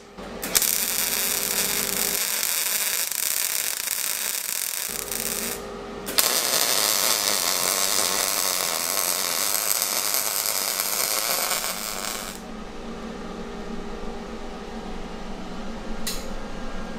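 Arc welding on a steel plate: the steady crackling hiss of the arc in two long weld runs with a brief pause between them, stopping about twelve seconds in.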